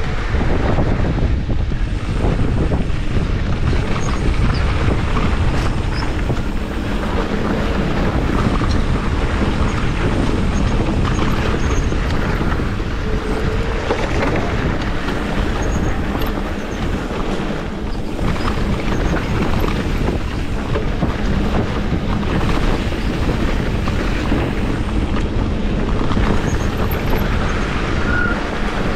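Wind rushing over the handlebar-mounted camera's microphone while an electric mountain bike rolls along a dirt trail, with steady tyre and bike rattle noise and scattered small clicks from the trail surface.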